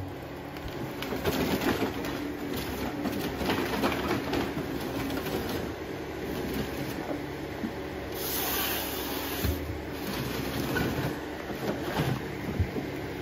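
Forestry machinery running: a steady engine hum under irregular clattering and knocking.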